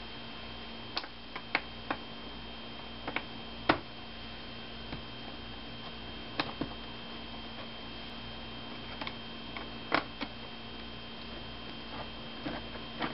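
Irregular light clicks and taps of a screwdriver and small screws while screws are taken out of an HP Pavilion dv6 laptop's screen assembly, about a dozen in all, over a steady electrical hum.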